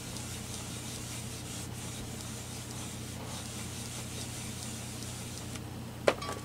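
A round ink pad rubbed and dabbed across a rubber stamp mounted in a stamping platform, a soft, steady scratchy rubbing. About six seconds in, a sharp click as the ink pad is set down on the table, with a smaller knock just after.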